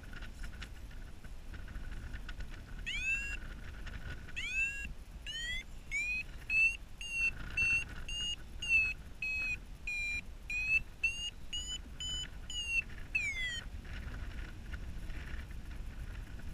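Paragliding variometer beeping its climb tone: short upward-chirping beeps that start a few seconds in, quicken to about two a second and creep up in pitch, the sign that the glider is climbing in a thermal. Near the end it gives one falling tone and stops. Steady wind rush on the microphone underneath.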